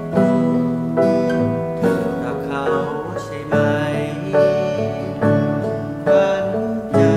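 A small band playing a slow pop song: a strummed acoustic guitar, a Casio keyboard and an electric guitar through a Marshall MG10 10-watt solid-state practice amp. A fresh strum or chord comes roughly every second.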